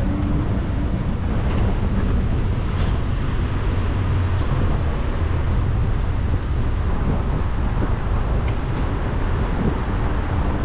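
Steady low wind rumble on the microphone of a camera riding on a moving bicycle, over the noise of street traffic.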